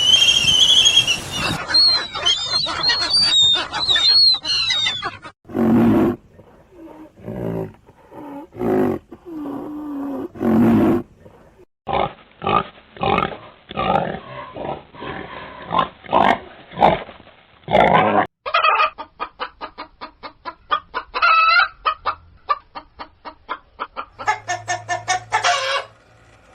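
A series of farm animal calls in several short segments, mostly fowl clucking. High chirping calls come first, then spaced separate calls, and from about two-thirds of the way through a fast run of short clucks.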